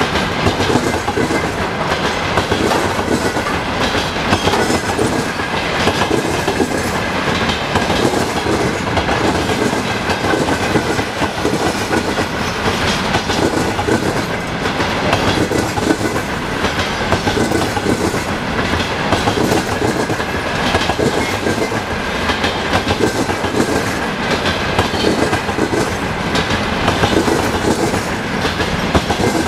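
Freight train of container flat wagons rolling past, wheels clacking steadily over the rail joints over a continuous rumble. A thin steady high tone runs under it throughout.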